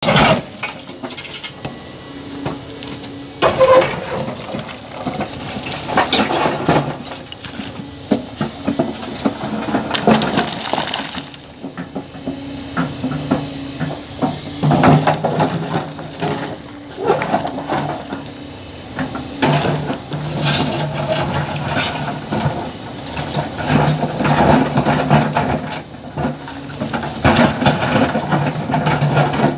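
Hyundai HX480L tracked excavator working rock: its diesel engine running steadily, rising in load at times, with repeated knocks, clatter and scraping of stone against the steel bucket.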